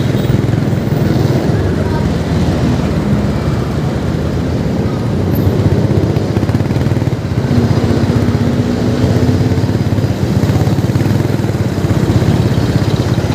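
Vehicle engine running as it travels and turns, under a constant low rumble of road and wind noise. A faint steady tone sounds for a second or two about halfway through.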